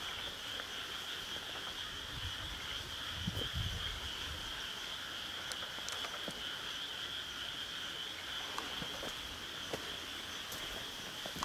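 Continuous high-pitched chorus of calling night animals, a steady even drone. A few low thumps and faint rustles close by about three to four seconds in.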